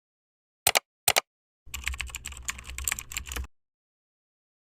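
Two brief pairs of sharp clicks, then about two seconds of fast, dense tapping clicks over a low rumble that stops abruptly.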